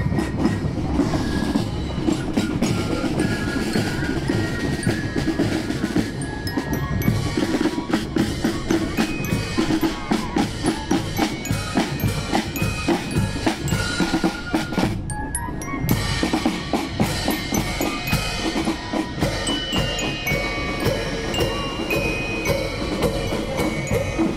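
Marching fife and drum corps playing a march: snare drums and bass drum keep a steady beat under fife melody, with a bell lyre (glockenspiel). The high melody drops out briefly about halfway through while the drums carry on.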